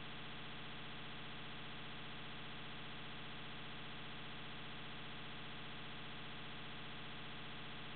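Steady, unchanging electrical buzz with hiss.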